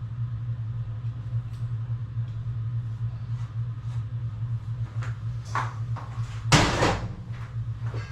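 Paint cans and a mixing cup being handled while sealer is measured out: light clicks, then one loud knock about six and a half seconds in, over a steady low hum.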